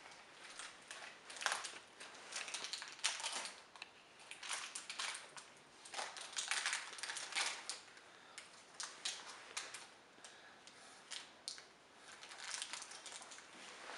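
Irregular crinkling and rustling as a small child's hand rummages in a hoodie pocket and pulls things out of it, in quick uneven bursts throughout.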